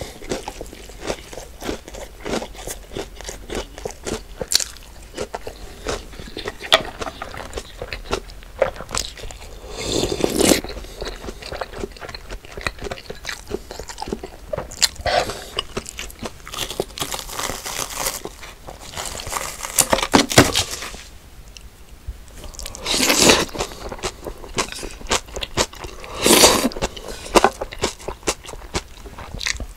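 A person chewing and biting crunchy food close to the microphone: a steady run of crisp crunches and mouth clicks, with several louder crunching bursts of about a second each.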